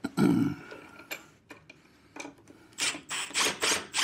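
Cordless impact wrench run in several short bursts, snugging nuts only lightly on a snowblower's handle assembly so as not to break them, with a few sharp clicks between the bursts.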